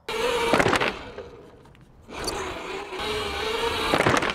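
Cake Kalk electric motocross bike's motor whining with a steady hum, together with tyre noise. It starts suddenly, fades about a second in, then builds again from about two seconds in, with a sharp knock near the end.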